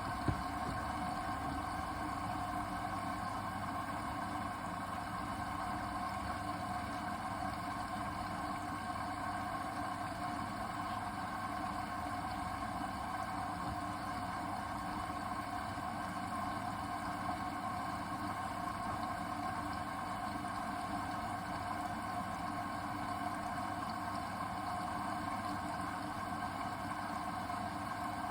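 Hoover VHD 812 washing machine running at a steady speed, its drum motor giving a constant hum with a steady whine on top.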